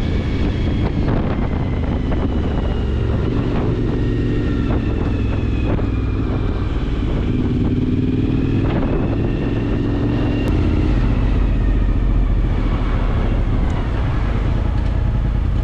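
Suzuki V-Strom DL1000's V-twin engine running steadily, a little louder about eleven seconds in.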